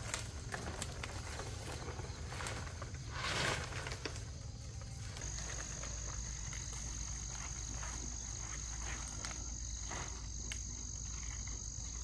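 Insect drone: a steady high-pitched buzz that starts about five seconds in and holds. There is a brief noisy rush about three seconds in, and faint scattered ticks throughout.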